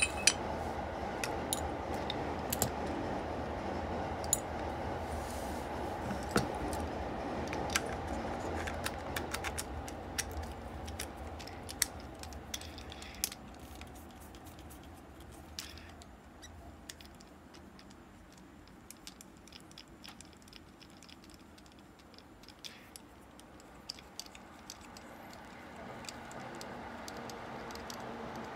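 Small metal clicks and taps of an Abu Garcia Ambassadeur 5500C baitcasting reel's parts being handled and taken apart by hand, over a steady hum that fades away in the first half.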